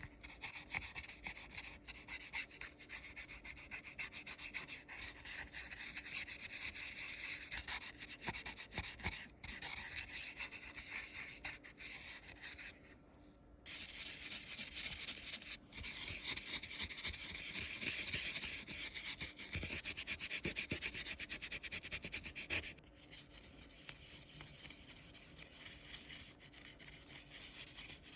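Gold foil being rubbed down onto a print: fast, continuous scratchy rubbing strokes on foil and paper, with a brief pause about 13 seconds in and a quieter stretch near the end.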